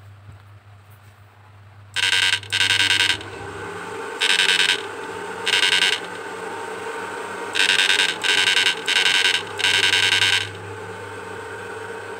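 Susan 1030 SMP fish-shocker inverter buzzing loudly in eight short bursts, each about half a second, while it drives a 200-watt halogen lamp. A low hum runs underneath, alone for about the first two seconds before the bursts start.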